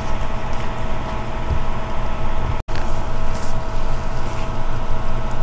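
Steady background noise of the recording microphone: an even hiss with a low electrical hum and a thin steady tone. It cuts out completely for a split second about two and a half seconds in.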